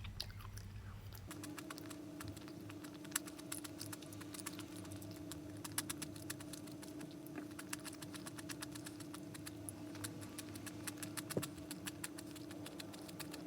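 Irregular, quick clicking of typing on a computer keyboard over a steady low hum.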